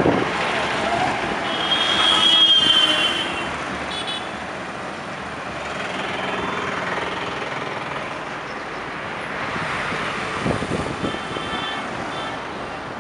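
Road and traffic noise from cars and scooters driving in a slow convoy, heard from a moving vehicle. A shrill, high tone sounds for about two seconds near the start.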